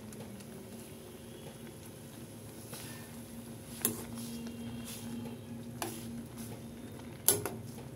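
Okra curry simmering in an aluminium kadai while a metal spoon stirs it, with three sharp clinks of the spoon against the pan, the loudest near the end. A steady low hum runs underneath.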